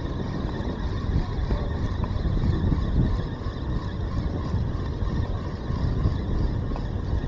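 Wind buffeting the microphone in a steady low rumble, over the sound of a spinning fishing reel being wound in.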